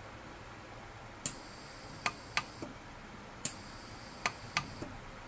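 Orion 150s pulse-arc micro TIG welder firing single weld pulses on a platinum ring at a low 15 watt-second setting, backfilling the seam with platinum wire. Each pulse is a sharp, brief snap, about seven of them at irregular intervals.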